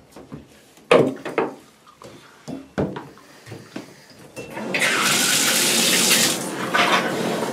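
A few light clicks and knocks as the newly fitted tub spout is handled, then the water is turned on about four and a half seconds in and runs hard from the tub spout into the bathtub.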